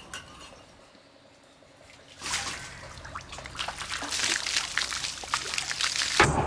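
Water poured from a bucket over a person's head, splashing onto the body and the ground, starting about two seconds in and growing louder. Music comes in at the very end.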